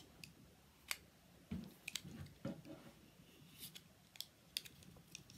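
Utility knife cutting into the thick HDPE handle of a milk jug: faint, irregular clicks and small crunches as the blade bites through the plastic.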